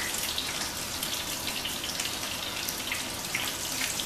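Pieces of halibut sizzling in a frying pan: a steady hiss with scattered crackles, and a few light clicks of tongs as the pieces are turned.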